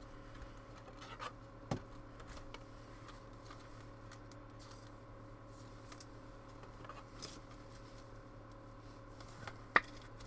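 Trading cards and their packaging handled quietly: faint rustling with scattered small clicks, a sharp click about two seconds in and a louder one near the end, over a low steady hum.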